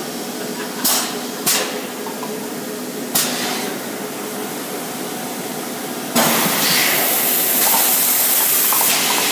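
EPS foam cup moulding machine running with a steady hum and three sharp clunks in the first few seconds. About six seconds in, a loud hiss starts from the machine and carries on for about three seconds.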